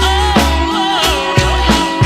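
Rock music with a drum kit keeping a steady beat of about three hits a second, a low bass, and a sliding lead line over it.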